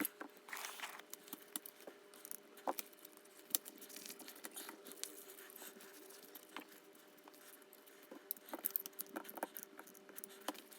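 Scattered small clicks and light rustling as a seat belt's webbing and metal fittings are handled and worked by hand, over a faint steady hum.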